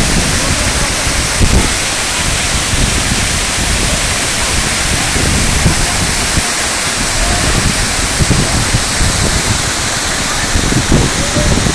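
Waterfall running: a loud, steady rush of falling water close to the microphone.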